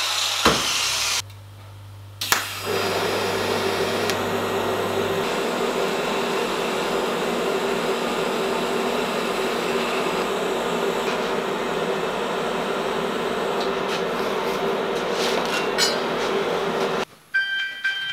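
TIG welding on a steel exhaust pipe: a steady hiss with a constant hum, after a couple of clicks early in, cutting off suddenly about a second before the end.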